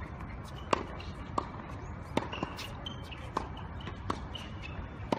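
A tennis ball being struck and bouncing on court, heard as a sharp pop every second or so, irregularly spaced, over steady background noise.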